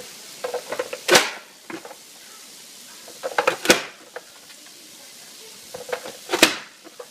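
Plastic push-down vegetable chopper dicing a tomato: three hard clacks of the lid being pressed down through the blade grid, about two and a half seconds apart and the last the loudest, each led by a few lighter plastic clicks. Onions frying in a pan sizzle faintly underneath.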